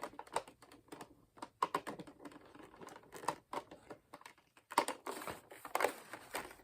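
Toy packaging being handled and opened: irregular clicks, taps and rustles of cardboard and plastic as a dragon figure is freed from its box, busiest about five seconds in.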